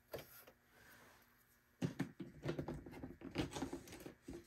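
Light, irregular clicks and small knocks of the slide-on extension table being fitted onto a Bernina 330 sewing machine and handled into place, one click at the start, then a busier run of clicks from about two seconds in.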